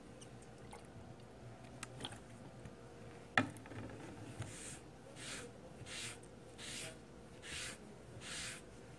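A sharp click about a third of the way in, then a wet cloth wiping back and forth over a zinc-ethyl-silicate-coated test panel in even swishing strokes, about one every 0.7 s, washing loose zinc dust off the coating.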